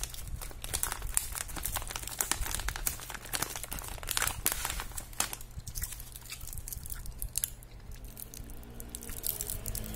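Crinkling of thin plastic candy packaging under fingers: the resealable candy bags, then a twist-wrapped soft candy. The crackling is dense at first and thins out after about five seconds.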